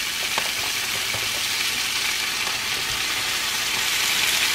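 Ham slices sizzling on a hot electric griddle: a steady frying hiss that builds a little toward the end.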